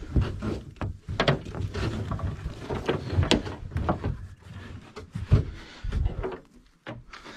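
Irregular knocks and thumps with rustling from someone moving about a small aluminium boat and handling its mooring rope. The heaviest thumps come about a second in, at three seconds and past five seconds.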